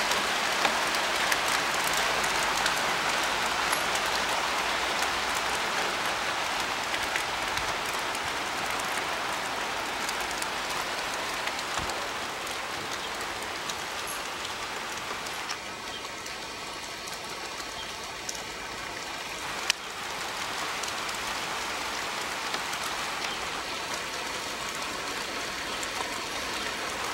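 A shower of rain mixed with small hail pattering steadily on a street and parked cars, as a dense even hiss that eases a little over time. A single sharp knock sounds about two-thirds of the way through.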